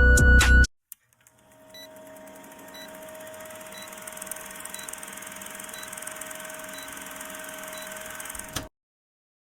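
Intro music breaks off within the first second. A faint, steady electronic hum follows, with a short high beep about once a second, and it cuts off abruptly with a click near the end.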